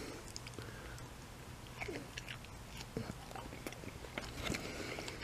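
A person biting and chewing a ketchup-dipped breaded chicken nugget, with scattered soft clicks of the mouth at work.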